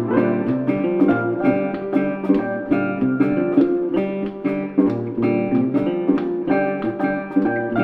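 Background music: an upbeat track of rapidly plucked and strummed guitar over a steady bass line.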